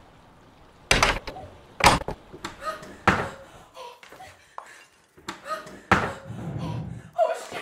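Several heavy thumps on a door, the loudest about a second apart, with smaller knocks between them.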